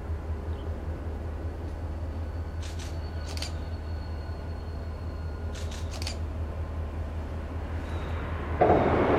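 Diesel yard locomotive set, a road slug powered by an EMD GP38-2's two-stroke V16, approaching slowly with a steady low engine throb. Pairs of sharp clicks come every few seconds. Near the end the sound suddenly gets much louder.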